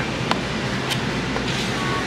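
Steady rumbling background noise of a café's dining room, a low hum under an even hiss, with two brief clicks about a third of a second and about a second in.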